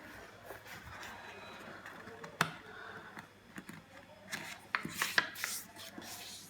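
A sheet of craft paper being handled and folded: soft rustling, a sharp tap about two and a half seconds in, and a cluster of crisp crackles and taps near the end as the paper is creased.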